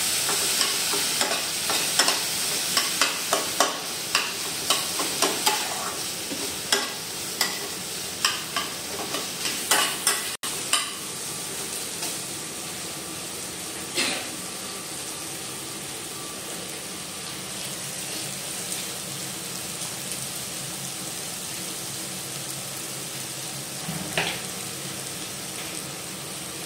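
A slotted metal spatula scrapes and taps against a metal kadai as boiled potato and vegetables are mashed and stirred in hot oil, over a steady sizzle of frying. The tapping stops about ten seconds in, leaving the sizzle with a couple of single knocks.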